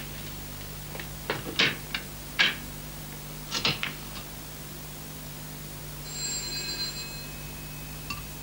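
A telephone being handled and dialled, with a run of irregular clicks and knocks, then a short high ringing tone about six seconds in. A steady low hum from the old soundtrack runs underneath.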